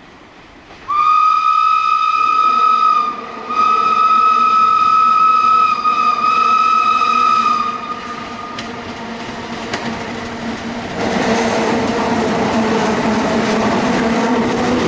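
Steam locomotive whistle blown twice, a blast of about two seconds and then a longer one of about four seconds, as the small tank engine approaches a road level crossing. About eleven seconds in, the noise of the locomotive working past close by grows louder.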